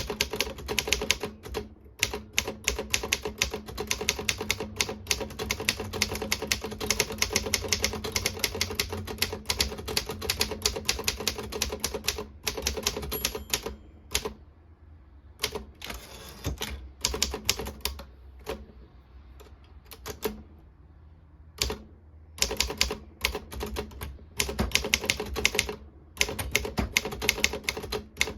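Optima Elite 3 manual portable typewriter being typed on: rapid typebar strikes, which thin out to scattered single strokes about halfway through and then pick up to quick typing again.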